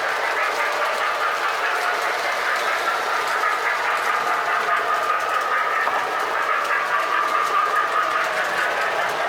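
O-gauge toy train running on three-rail track: a steady whir of the locomotive's motor and wheels rolling on the rails, with faint light clicking.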